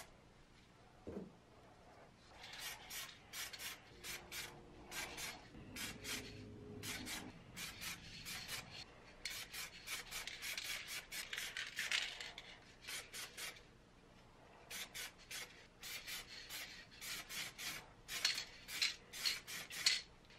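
Aerosol spray paint can hissing in many short bursts as red brake caliper paint goes on, with a pause of about a second about two-thirds of the way through.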